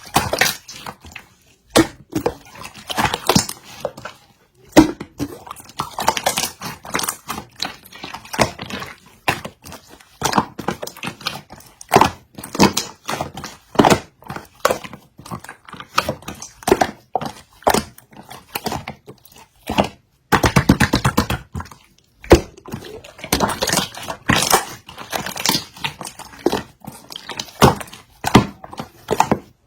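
Stiff, glossy slime being squeezed, pressed and stretched by hand, giving a run of sticky clicks and crackling pops, with a quick rattle of clicks about two-thirds of the way through.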